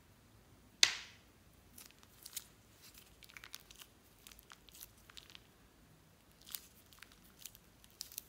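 Clear plastic piping bag crinkling and crackling as it is squeezed, with one sharp loud crackle about a second in and then scattered small crackles.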